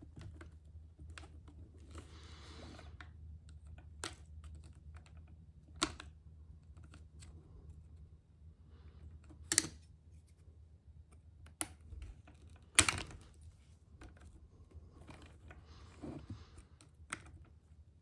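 A metal pick and small hand tools working at a stuck part on an RC truck: scattered sharp clicks and taps with a few short scraping passages, the loudest tap about thirteen seconds in. A low steady hum runs underneath.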